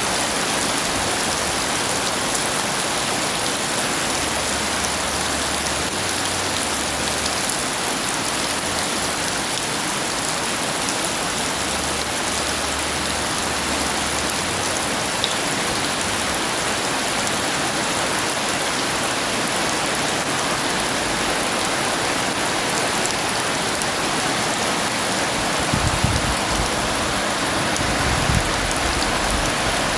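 Heavy rain falling steadily, a dense even hiss; low rumbling comes in during the last few seconds.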